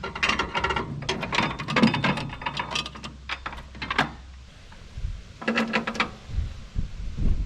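New roller drive chain on a combine header being worked by hand over its sprockets, the links clicking and rattling against each other and the metal in a quick irregular run, then a second short burst of rattling a little after five seconds in.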